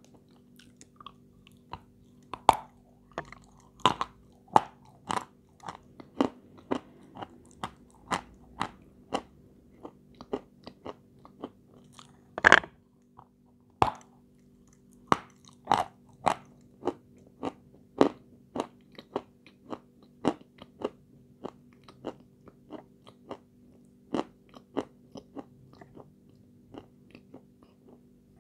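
Close-up crunching and chewing of a hard white confection: irregular crisp crunches about once or twice a second, the loudest one about twelve seconds in.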